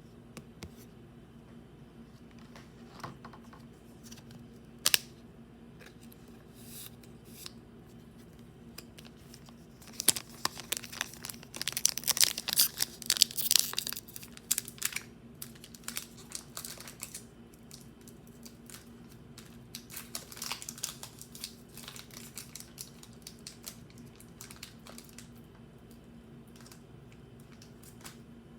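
Crinkling and tearing of a Pokémon card booster pack's foil wrapper being opened. It comes in bursts of crackling, densest around the middle, with a sharp click a few seconds in and a faint steady hum underneath.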